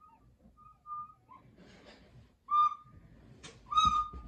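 Plastic soprano recorder blown by a child: short, thin notes and breathy puffs, then two loud, shrill notes, one about halfway through and one near the end. A short sharp noise comes just before the last note.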